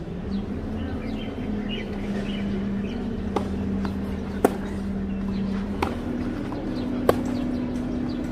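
Tennis ball struck back and forth by racquets in a rally: four sharp hits about a second or so apart, the loudest in the middle of the run. Birds chirp and a steady low hum runs underneath.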